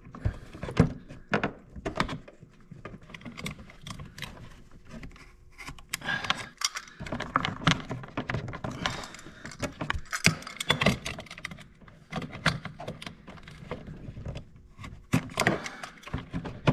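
A flat screwdriver and fingers working a rubber coolant hose off its plastic fitting: an irregular run of small clicks, taps and scrapes as the hose is pried and twisted loose.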